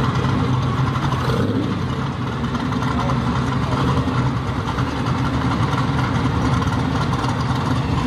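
Supercharged engine of a pro street Chevelle running at a steady low rumble as the car rolls slowly past, without revving.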